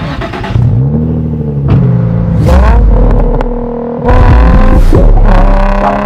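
Nissan 350Z's 3.5-litre V6 starting up and then being revved, the pitch rising and falling; a sudden louder rev comes about four seconds in.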